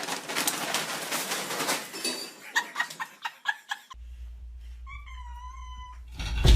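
A domestic cat meowing once, a single wavering meow lasting about a second, near the end. It comes after a few seconds of scuffling, clattering noise with several sharp clicks.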